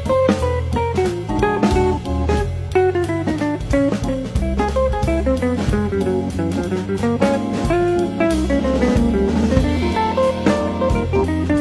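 Instrumental background music: a plucked guitar melody over a steady bass line and drum-kit beat.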